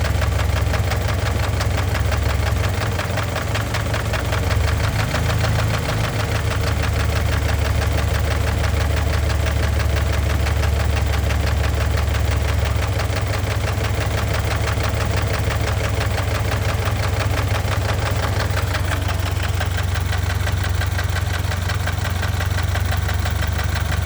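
Engine idling steadily with a rapid, regular knock that Lucas heavy-duty oil stabilizer has not cured. The engine knocks once it is warmed up; the owner believes thick oil had been masking the knock.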